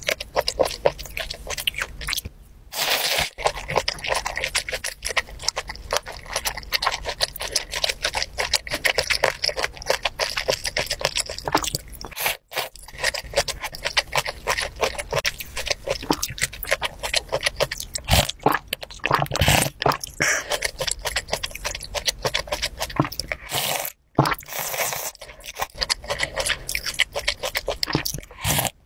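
Close-miked mouth sounds of eating raw fish slices and spicy fish stew: dense wet clicks, crunches and chewing, with sips of broth from a spoon. Three brief silences break it.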